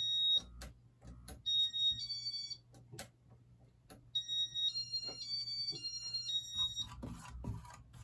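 Casablanca IntelliTouch fan control beeping: three runs of short electronic tones that step up and down in pitch, the longest about halfway through, with sharp clicks between them, as the fan is switched on.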